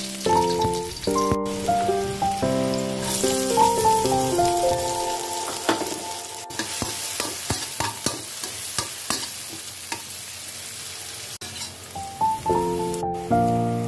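Shallots and chopped long beans sizzling in hot oil in a stainless steel wok, stirred with a metal spatula that gives sharp scraping clicks in the middle stretch. Background music with a melody plays over the first few seconds, drops out, and comes back near the end.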